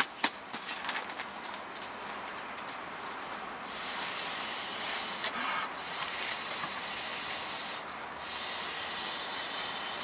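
Nylon fabric rustling as a stuff sack is handled, then from about four seconds in, breath blown by mouth into a small inflatable pillow: two long exhales with a short break between.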